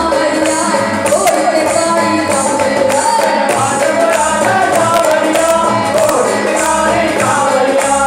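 Music: a singing voice over a steady beat with a jingling tambourine-like percussion.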